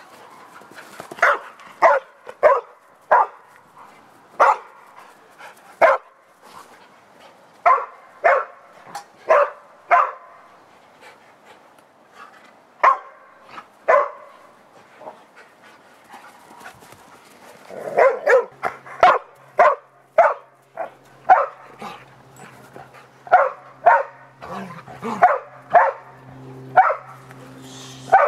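Dogs barking during rough play, short sharp barks in irregular volleys that come thickest in the last third.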